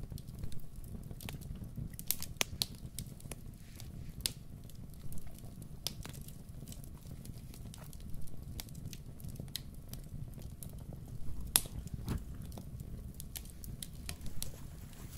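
Wood campfire crackling, with irregular sharp pops over a low steady rumble.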